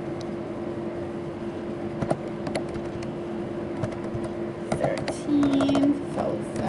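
Computer keyboard and mouse clicks as figures are typed into a spreadsheet, a handful of sharp taps scattered through the middle, over a steady low electrical hum. A short murmured voice comes in about five seconds in.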